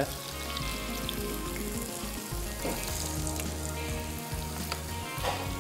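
Breaded chicken strips deep-frying in hot oil: a steady sizzle.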